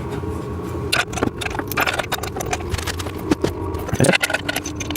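Steel bolts, washers and nuts clinking and scraping against a metal frame as they are fitted loosely by hand, in a run of irregular clicks over a low steady hum.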